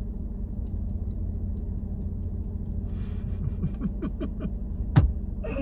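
Low, steady rumble heard inside a stopped car, with a single sharp click about five seconds in.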